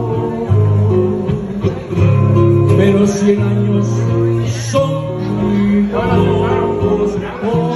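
Live acoustic guitar music: a ballad played on a steel-string acoustic-electric guitar through a small sound system, with held bass notes underneath that change about once a second.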